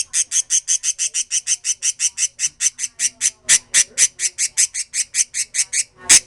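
Pet birds chirping: a fast, even run of short, high chirps, about seven a second.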